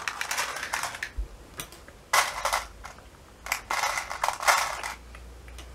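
Hands rummaging in a clear plastic container of small items, making a rattling, clattering noise in several short spells with pauses between them.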